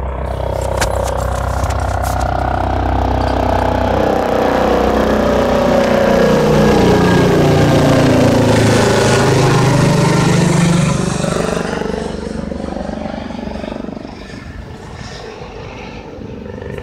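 A vehicle passing: its engine grows louder over several seconds, peaks around the middle, then drops in pitch and fades about two-thirds through.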